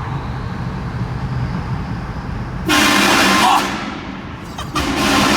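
Road rumble from a moving car, then an aftermarket multi-trumpet air train horn on a BMW E90 335d sounds twice. The first blast lasts about a second and comes nearly three seconds in. The second starts near the end and is very loud.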